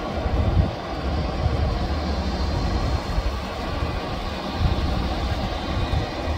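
Jet airliner engines at an airport, a steady low rumble with a faint high whine.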